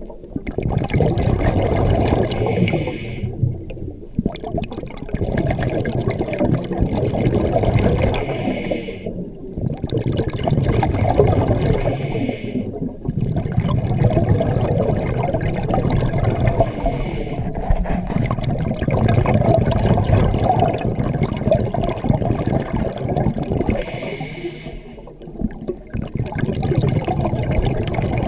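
Scuba diver breathing through a regulator underwater: a short hiss on each inhale, then a long rumble of exhaust bubbles on each exhale, about five breaths in a slow, even cycle.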